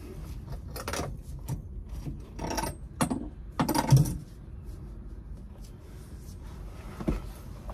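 Handling noise of gloved hands gripping and working a copper water pipe and its press fittings overhead: a few short rustles and scrapes in the first half, a quieter stretch, then a sharp click a little after seven seconds.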